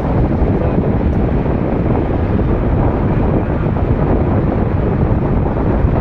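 Steady wind rushing over the microphone of a moving vehicle, mixed with the vehicle's road and engine noise as it drives along.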